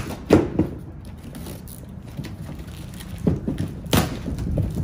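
Cardboard box being opened by hand: a sharp knock on the box just after the start, then flaps and packing sheets scraping and crackling, with another sharp crackle about four seconds in.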